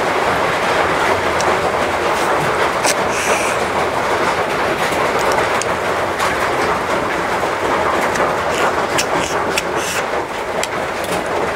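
Heavy rain pouring steadily, with scattered light clicks over it.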